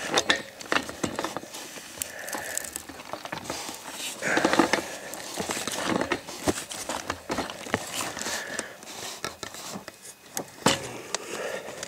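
Pipe wrenches on a threaded steel pipe at a brass well tee: a run of sharp metal clicks and knocks with scraping and rustling between, loudest about four seconds in.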